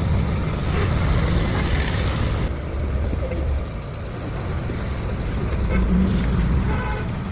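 A motor vehicle's engine with a steady low rumble, and a hiss alongside it that cuts off abruptly about two and a half seconds in.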